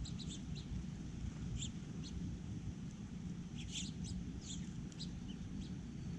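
Small birds at a feeder giving short, scattered chirps, with a quick flurry about four seconds in, over a steady low rumble.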